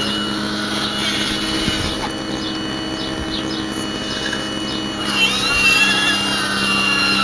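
RC model Hitachi 870 excavator running: its motors give a steady whine while the upper structure swings round. From about five seconds in, a higher whine rises and then falls away.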